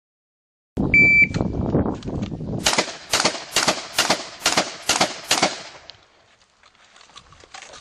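Electronic shot timer's start beep, a short steady high tone, followed about a second and a half later by a rapid string of shotgun shots, about three a second, as a practical shotgun stage is shot.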